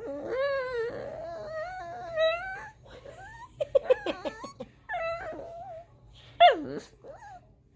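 Dog whining and 'talking': a long, wavering whine that climbs in pitch, then a run of short quick yips, another brief whine and a sharp cry that falls in pitch near the end. It is begging to be let up.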